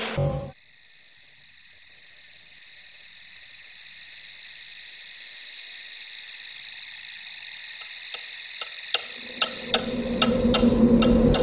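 Suspense sound design for a night scene: a steady high chirring like a chorus of crickets swells slowly. About eight seconds in, sharp ticks join, about three a second, and a low drone enters near the end.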